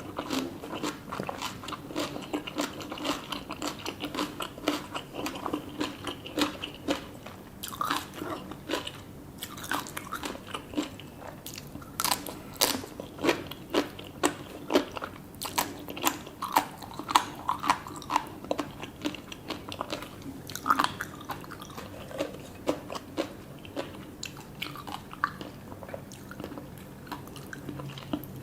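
Close-miked eating: steady chewing with many sharp, crisp crunches and bites, loudest around the middle.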